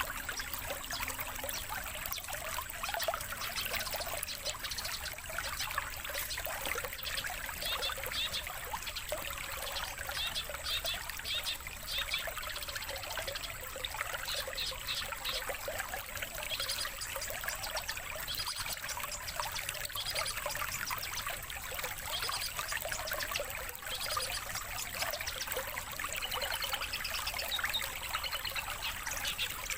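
Long-tailed shrike (cendet) chattering and calling in quick chirps, over a steady sound of trickling water, on a bird-training lure track.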